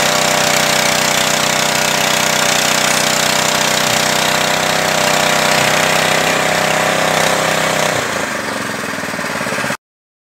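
Small petrol engine driving a fish-feed pellet machine, running steadily with a loud clattering rattle. Near the end the sound thins out, then cuts off suddenly.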